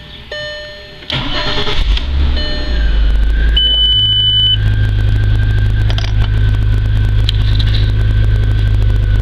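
Volkswagen Passat started with its original key. A dashboard warning chime rings once, then about a second in the starter cranks. The engine catches and settles into a steady idle, and it keeps running, a sign that the immobilizer accepts the reprogrammed key. A single high beep sounds partway through the idle.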